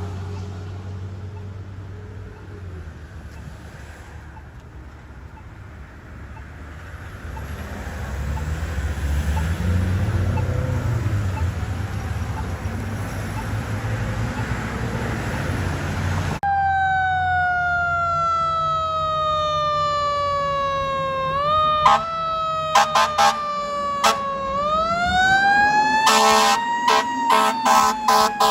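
A fire truck siren trails away into low engine and traffic rumble. Then a fire truck's mechanical Q siren sounds: its tone slowly winds down, jumps back up and winds up again, while the air horns give a string of short blasts.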